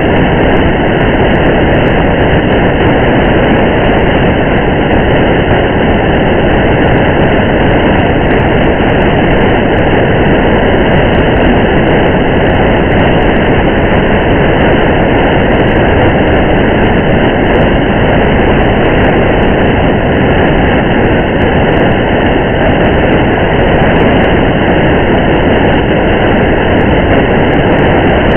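Steady, even noise of a car driving through rain: a constant loud road-and-rain hiss and rumble, with faint scattered ticks on top.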